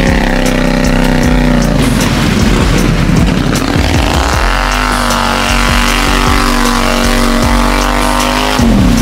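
Lifted ATV's engine revved hard at full throttle while pushing through deep mud, with mud spraying off the tyres. It holds high revs, drops off about two seconds in, climbs back up around four and a half seconds in, holds, and falls again just before the end.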